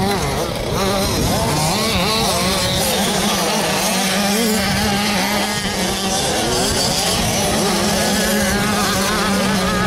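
Several 65 to 80 cc youth motocross bikes with two-stroke engines, revving hard as they climb the track. Their engine notes rise and fall over one another without a break.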